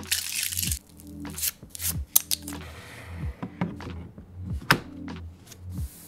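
A Corsair K100 keyboard and its plastic packaging being handled: a short rustling slide of plastic at the start and again about halfway, with sharp clicks and taps of the keyboard being moved and touched. Background music with a steady beat plays throughout.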